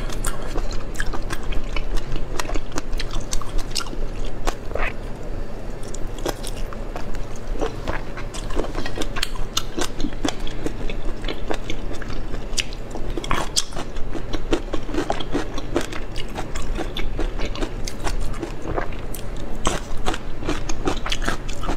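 Close-miked chewing and biting of cooked octopus: steady wet mouth smacks with many small clicks.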